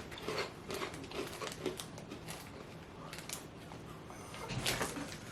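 People chewing and crunching small seafood-flavoured crackers, a run of irregular crisp crunches, a little louder near the end.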